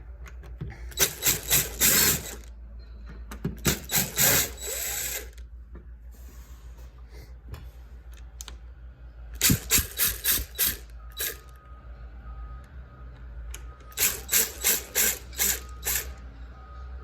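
Screws of an old door deadbolt being worked out with a hand tool: four bursts of quick, sharp clicking, about four or five clicks a second.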